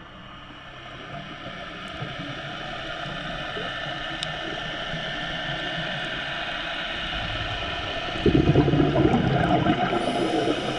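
Underwater ambience from a scuba dive: a steady hiss that slowly grows louder, then from about eight seconds in a louder rushing, bubbling noise, typical of a diver's exhaled bubbles from a scuba regulator.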